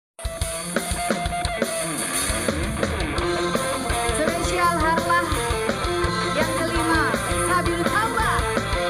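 Live band music with a drum kit beat and electric guitar, and a woman singing into a microphone over it. It starts abruptly just after the beginning.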